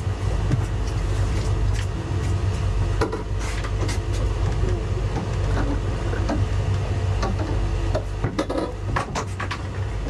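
Boat's engine running with a steady low drone, with a few knocks and clatters, most of them near the end.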